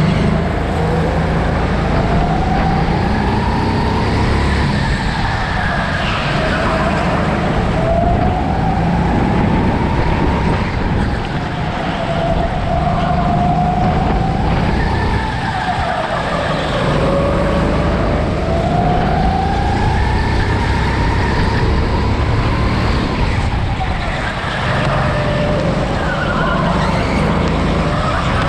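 Racing kart lapping, heard from onboard: a drive whine that climbs in pitch as the kart accelerates and drops back as it slows for corners, about five times, over a steady low rumble of the chassis and tyres.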